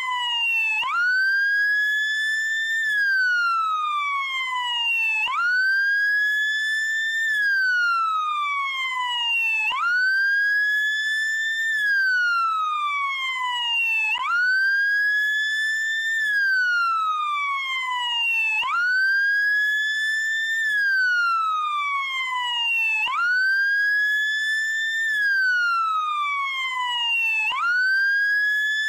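American police car siren in wail mode: a single tone rising quickly to a high pitch and gliding slowly back down, repeating about every four and a half seconds.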